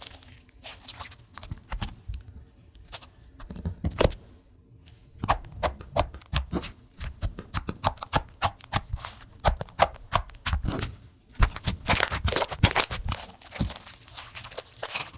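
Slime squished and folded by hand, giving a quick, irregular run of sticky clicks and pops. It goes quieter for a moment about four seconds in and is busiest around twelve seconds.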